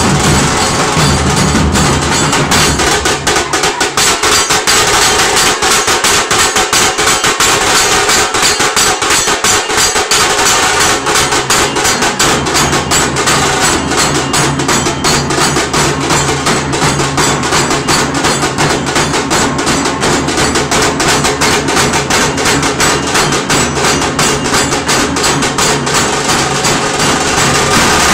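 Dhol-tasha ensemble playing: large barrel dhols beaten with sticks together with small tasha drums, in a loud, fast, continuous rhythm. The deep low booming thins out for several seconds about three seconds in, then returns.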